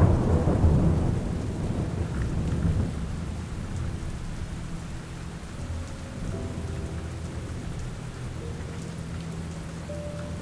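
Steady rain falling, with a roll of thunder rumbling at the start and fading away over the first few seconds.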